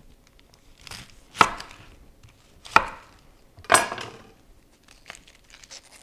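Kitchen knife chopping through onions onto a cutting board: three sharp, loud chops about a second apart, with a few lighter knocks and taps around them.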